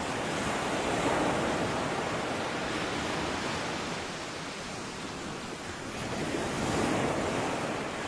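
Sea surf washing onto a sandy beach: a steady hiss of waves that swells about a second in, eases off in the middle and swells again near the end.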